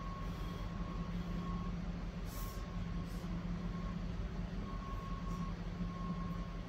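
Steady low hum of a generator truck's engine running outside, with a faint high whine that comes and goes. A couple of short noodle slurps about two and three seconds in.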